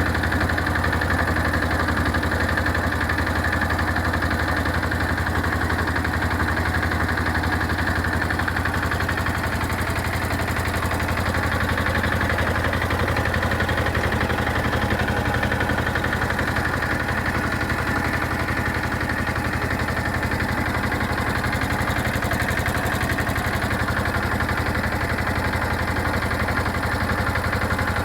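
Agrale M90 single-cylinder diesel engine of an Agrale 4100 tractor running steadily, its firing strokes evenly paced with no change in speed.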